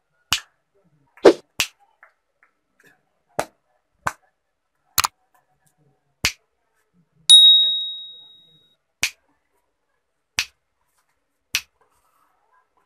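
About ten sharp finger snaps, unevenly spaced, next to a homemade CD4017 clap-switch circuit; each snap toggles the light bulb it controls on or off. About seven seconds in there is a single high ringing ping that fades over a second or so.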